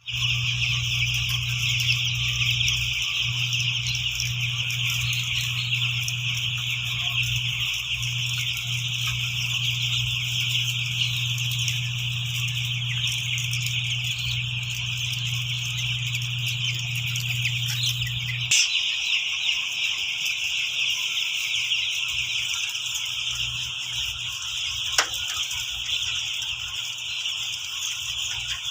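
A large flock of four-day-old broiler chicks peeping continuously in a dense, high-pitched chorus. A steady low hum underneath cuts off about two-thirds of the way through.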